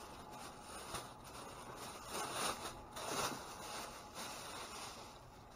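Rustling and scraping of discarded food packaging as it is rummaged through and handled, with two louder rustles about two and three seconds in.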